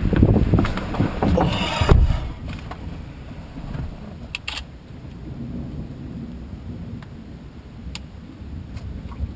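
Thunder rumbling loudly overhead, ending in a sharp crack about two seconds in, then a quieter low rumble.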